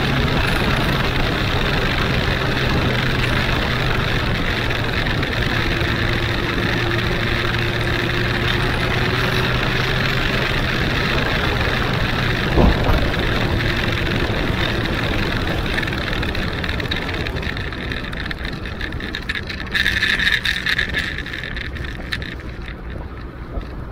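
Huanglong 600 inline-four motorcycle running at road speed, with wind and road noise over a low, steady engine note. There is a single sharp knock about halfway through, and the sound eases off over the last several seconds as the bike slows.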